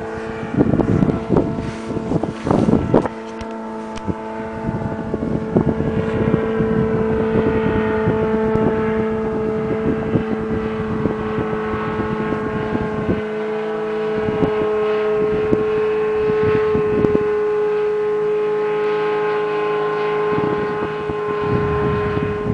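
Small tow plane's engine and propeller droning steadily overhead as it tows a hang glider aloft, its pitch drifting slowly. Gusts of wind buffet the microphone near the start and again near the end.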